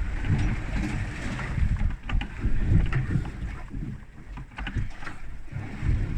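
Boat at sea: uneven low surges of water against the hull and wind on the microphone, with a few short clicks about two seconds in.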